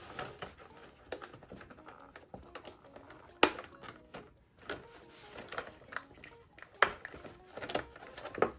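Taped plastic packaging around a boxed figure being cut and pulled open by hand: scattered sharp clicks and crackles, the loudest about three and a half seconds in, near seven seconds, and near the end.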